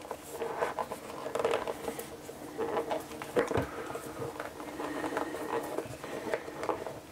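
Cardboard phone box and its paper wrapping being handled and opened by hand: irregular scratching, rustling and light taps.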